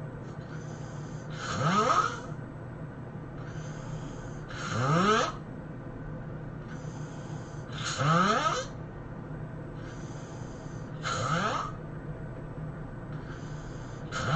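A person snoring heavily in a slow, even rhythm: a loud snore that rises in pitch about every three seconds, four of them with a fifth just starting at the end. A quieter, breathy breath comes between each pair.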